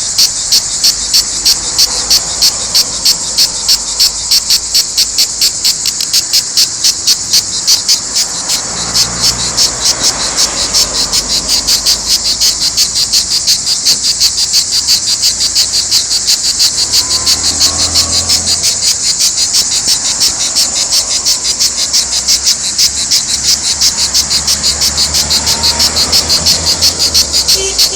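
Cicadas singing in chorus: a loud, high, continuous buzzing that pulses in a steady, rapid rhythm.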